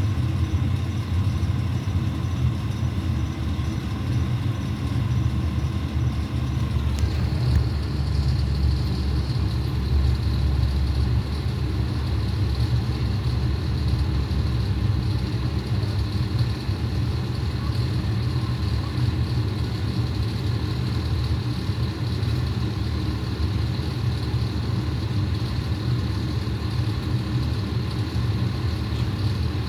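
Fire truck engine idling with a steady low rumble; about seven seconds in, a faint high steady hiss joins it.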